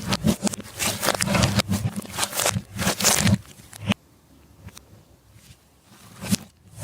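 Slime being squished and stretched by hand: a dense run of sticky crackling and popping that falls quiet about four seconds in, with a few pops returning near the end.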